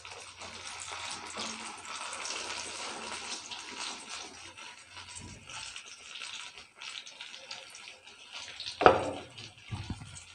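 Hot oil sizzling and bubbling hard around breaded stuffed green chilies just dropped in to deep-fry. A sharp knock about nine seconds in.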